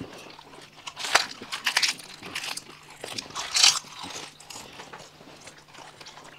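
Crisp fried fuchka (panipuri) shells crunching as they are bitten and chewed whole, several separate crunches with the loudest about three and a half seconds in, amid wet chewing.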